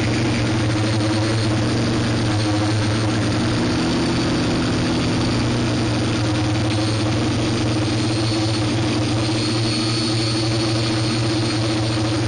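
Steady, even drone of a radio-controlled model aircraft's motor and propeller, heard through its own onboard camera, with a hiss of air noise over it.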